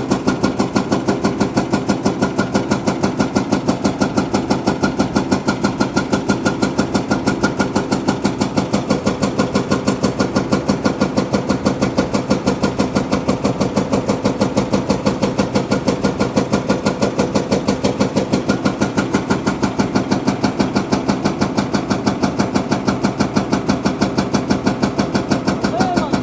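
A heavy machine's diesel engine idling steadily, with a fast, even chugging beat.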